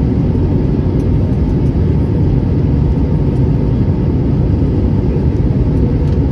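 Steady, deep cabin noise of an airliner in flight: its wing-mounted jet engine and the rushing air, heard from a window seat over the wing during the descent to landing.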